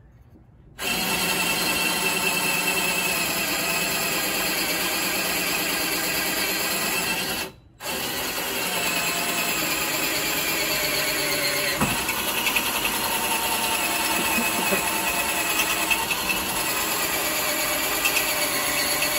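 Electric drill running steadily with a 5/16-inch bit, boring through an outrigger runner rail and cross tube. It stops briefly about seven and a half seconds in, then runs again.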